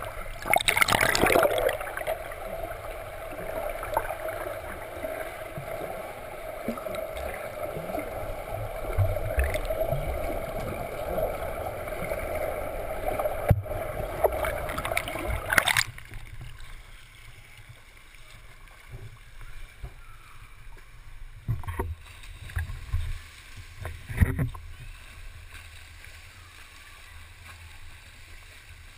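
Swimmer doing front crawl heard through a submerged camera in a pool: muffled rushing and churning water with a steady hum, loudest about a second in as the swimmer passes close. After a sudden drop about halfway through, a quieter water wash remains, with a few sharp knocks.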